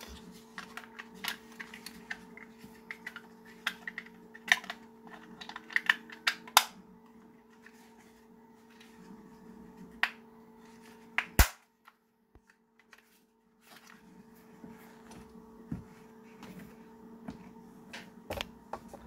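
Hard plastic clicks and taps as the 3D-printed pen holder's parts are handled and its cover is pressed onto the base, with the loudest sharp click about eleven seconds in. A faint steady hum runs underneath.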